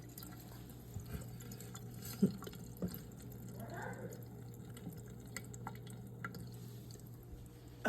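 Hot water dripping in scattered, irregular drips from a cup that the boiling water has damaged, over a steady low hum.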